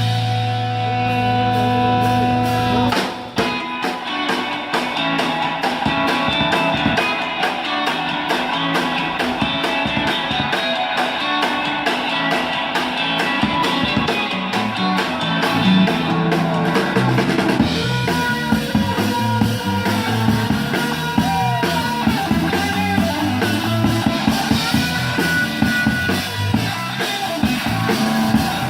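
A rock band plays an instrumental passage on guitar and drum kit. A held chord rings for the first three seconds, then a fast, driving drum beat kicks in under guitar lines.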